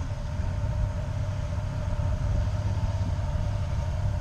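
Off-road vehicle engine idling with a steady low rumble.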